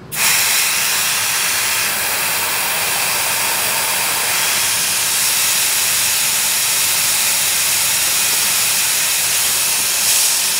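Compressed-air coolant mister on a milling machine spraying mist onto the end mill, a loud steady hiss that comes on abruptly.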